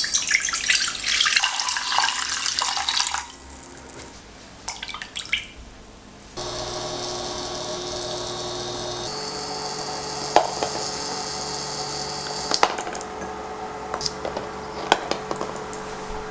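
Kitchen tap water running for about three seconds, then short splashes. From about six seconds in, a steady electric motor hum sets in, shifting slightly about nine seconds in, with a few sharp clicks of utensils over it.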